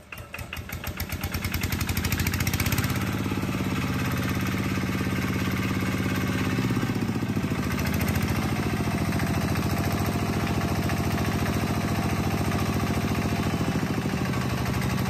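Hinota ET140 single-cylinder diesel engine firing after hand-cranking and picking up speed over the first two seconds, then running steadily with an even exhaust beat. The engine note shifts about a third of the way in and again near the end.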